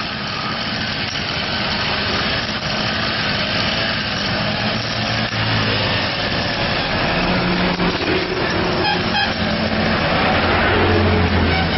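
Brush cutter's small engine running steadily while its spinning circular blade cuts through grass and weeds, a little louder near the end.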